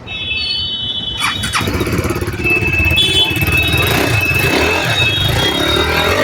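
KTM RC 390's single-cylinder engine being started and running after a top-end repair for a ticking noise (worn rocker, cam timing and valve shims reset), with a high steady whine over the engine note.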